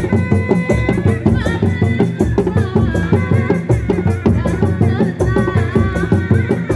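Kuda lumping ensemble music: a fast, dense rhythm of hand drums and percussion, with a melody line that bends up and down in pitch entering about a second in.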